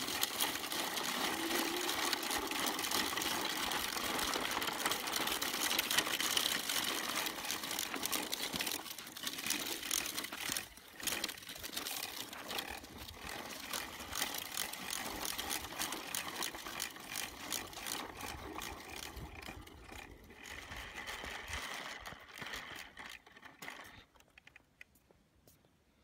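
Plastic wheels of a child's push toy rattling and clicking over a dirt path, a fast continuous clatter that fades out near the end.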